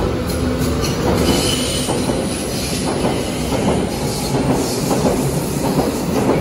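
BVG H-series U-Bahn train pulling out of an underground station and picking up speed: a steady rumble of the passing carriages with irregular clicks of the wheels over the rail joints and a brief high wheel squeal about a second in.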